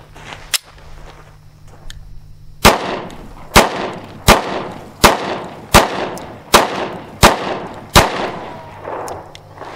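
Smith & Wesson Shield 9mm pistol firing eight shots of steel-cased 9mm ammo in a steady string, about one shot every 0.7 seconds, each followed by a short echo. The pistol cycles through the string without a stoppage. A small click comes about half a second in, before the first shot.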